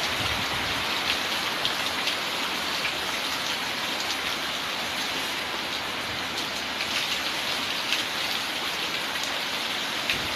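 Heavy rain falling steadily, a dense even hiss with scattered sharper drop splashes.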